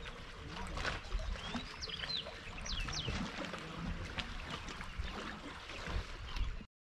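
Seawater lapping and splashing against the concrete jetty and rocks, with wind gusting on the microphone as a low rumble. A few short high bird chirps come about two to three seconds in, and the sound cuts off suddenly just before the end.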